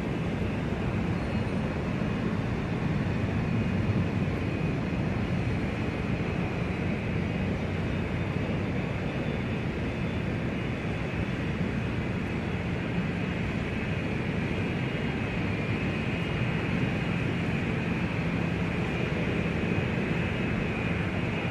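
Airport ambience: a steady, even rumble and hiss with no breaks. A faint high whine sits on top of it in the second half.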